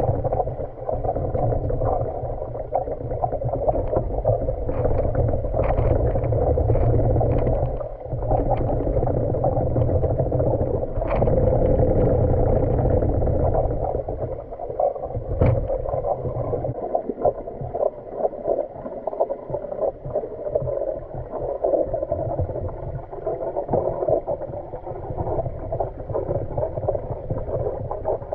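Muffled underwater rumble of water moving around a manual pool vacuum head as it is pushed over a tiled pool floor, with a few sharp clicks of the head on the tiles. After about halfway the sound turns choppier and uneven.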